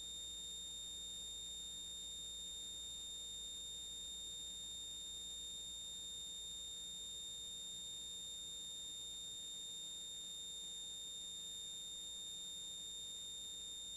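Steady high-pitched electronic whine with fainter higher overtones above it, over an even hiss; it does not change.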